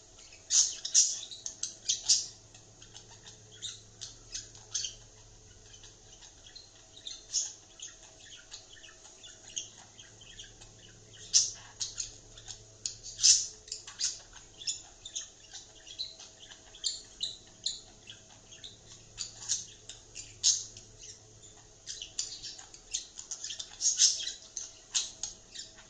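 Budgerigar chattering: quick, irregular runs of short chirps and squawks, louder clusters coming and going.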